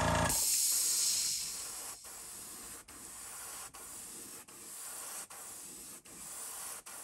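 An airbrush hissing as it sprays transparent brown paint onto a crankbait lure, in short passes with brief breaks a little under once a second. Just after the start, the small air compressor that feeds it stops running.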